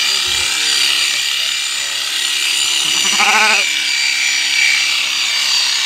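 ST-777 650 W electric sheep shearing machine running steadily with a high whine as its cutter works through the fleece. A sheep bleats once, with a quavering call, about three seconds in.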